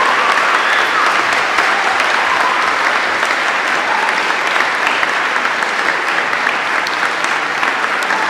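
Audience applauding, a dense, steady clapping with no break.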